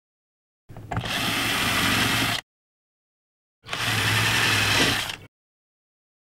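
Cordless drill running in two bursts of about a second and a half each, boring pilot holes through FRP panel board.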